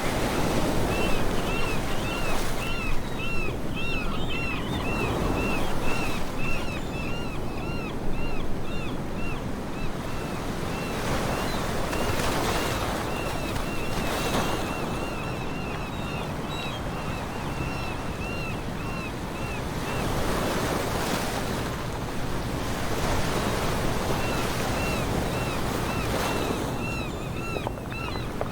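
Ocean surf washing in slow swells, with a bird calling in long runs of quick, short chirping notes.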